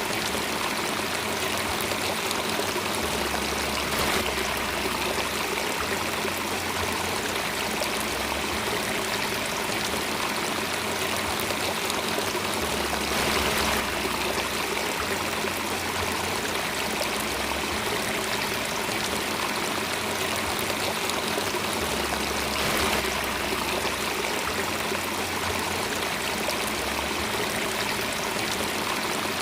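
Water running steadily in a stream, an even rushing and trickling with a slight swell about every nine seconds.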